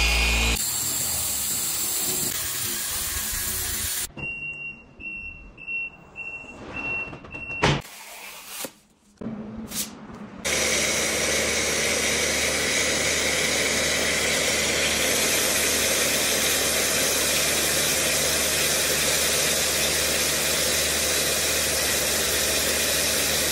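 Snow foam sprayed from a pressure washer's foam lance onto a car, a steady loud hiss over the machine's low hum, starting about ten seconds in. Before it, a polisher runs briefly, then comes a stretch of short high beeps and clicks.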